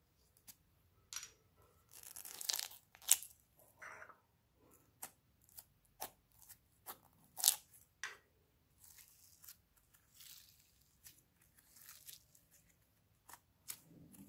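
Thin plastic casing of a pineapple squishy toy being torn open: irregular sharp crackles and tearing, loudest in a few bursts, with quieter rustling and squishing in between.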